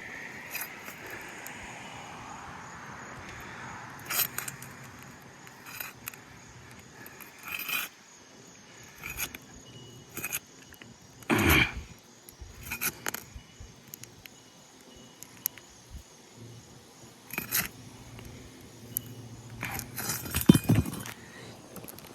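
Asphalt shingles being pried loose from their sealant strips: irregular scrapes, clicks and knocks, the loudest about halfway through and again near the end.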